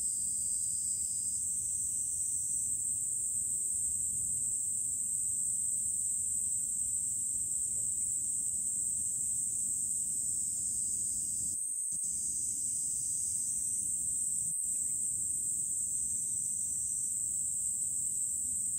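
Steady high-pitched drone of insects in the trees, cutting out briefly twice in the second half, over a low rumble.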